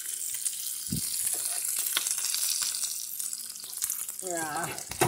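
Chuck eye steaks sizzling in hot fat in a copper-coloured frying pan, a steady hiss, with the tongs clicking against the pan a few times. A brief voice-like sound comes near the end.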